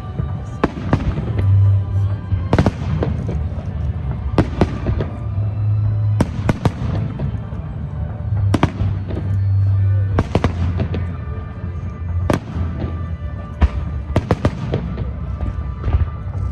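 Aerial fireworks exploding in a display, a dozen or more sharp bangs at uneven intervals, some in quick pairs, with music playing underneath.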